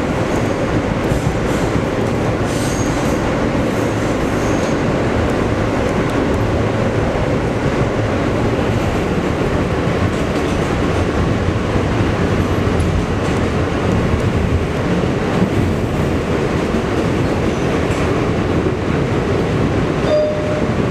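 New York City subway train running at speed, heard from inside the car: a steady, loud rumble and rush of steel wheels on the rails.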